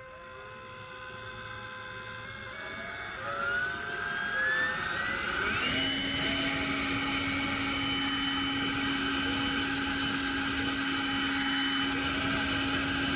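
Ryobi cordless electric leaf blower, an electric ducted fan, spinning up with a rising whine over a few seconds and then running steadily at full speed with a loud airy rush.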